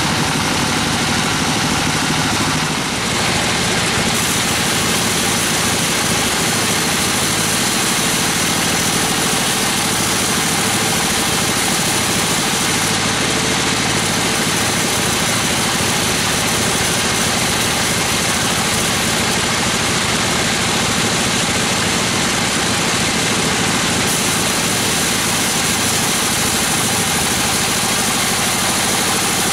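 Band sawmill running steadily, its blade cutting lengthwise through a gmelina log, with a brief dip in the noise about three seconds in.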